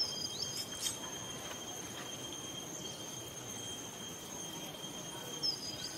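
Insects calling steadily in the forest, a continuous high-pitched trill made of two steady tones, with a few short falling chirps near the start and again near the end.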